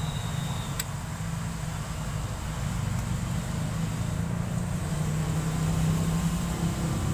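An engine idling steadily, with one short click about a second in.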